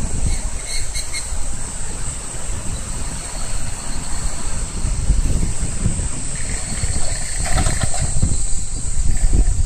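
Wind buffeting the microphone in gusts over a steady, high-pitched drone of cicadas.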